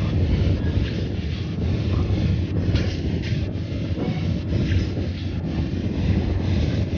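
Steady low rumble of a moving road vehicle: engine and tyre noise while driving, with some wind on the microphone.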